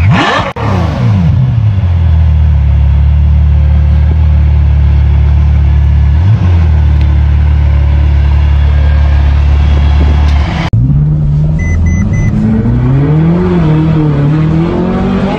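Ferrari 812 Superfast's V12 given a quick rev blip that drops back to a deep, steady idle through its quad exhausts, with one small blip partway through. About two-thirds of the way in it cuts to a Ferrari California's V8 heard from inside the cabin while driving, its engine note rising and falling as it accelerates and eases off, with three short electronic beeps just after the cut.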